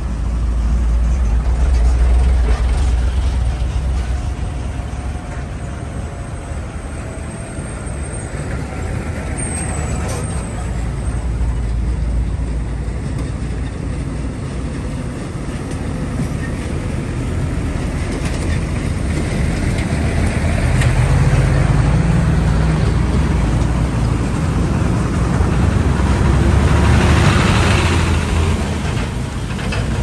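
Road traffic with heavy vehicles: a deep engine rumble over tyre and road noise, swelling as trucks or buses pass several times.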